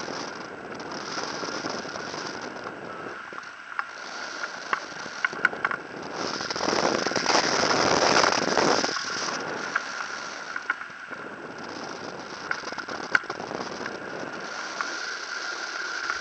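Wind rushing over a hang glider in flight, with scattered small ticks and rattles and a thin steady whistle underneath; the rush swells loudest around the middle.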